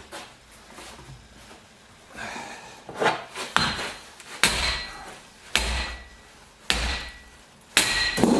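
Hammer blows on a metal belt-tensioner assembly, about six sharp strikes roughly a second apart starting some three seconds in, the later ones ringing briefly, as the stuck tensioner is knocked apart.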